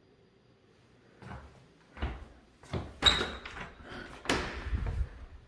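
A door being handled and opened: a string of knocks and clicks from its handle and latch, the sharpest about three seconds in, then a longer scraping sweep a second later as it swings.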